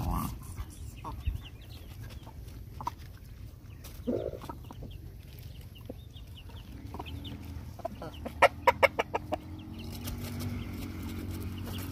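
Chickens clucking as they peck at food, with a fast, loud run of about eight clucks a little past the middle and faint high peeps between scattered single calls. A low steady hum rises near the end.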